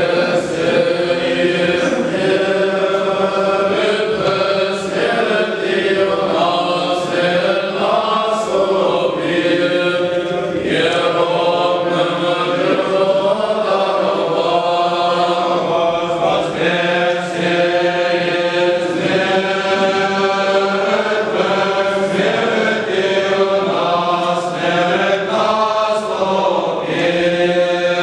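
Voices chanting an Orthodox liturgical hymn in unison, over a steady low held note beneath the melody.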